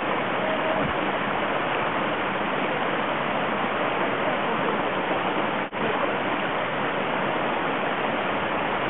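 Small forest stream rushing steadily over rocks, running high and spilling across the path after heavy rain. The sound drops out for an instant about two-thirds of the way through.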